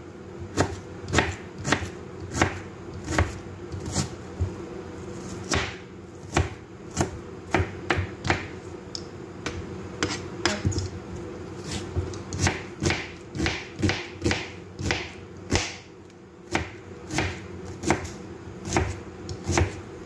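Chef's knife chopping red onion on a cutting board: irregular sharp knocks of the blade on the board, roughly two a second, over a steady low hum.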